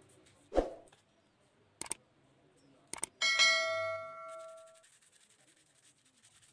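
Subscribe-button animation sound effect: two sharp clicks, then a bright bell chime that rings and fades over about a second and a half. A dull knock about half a second in comes before it.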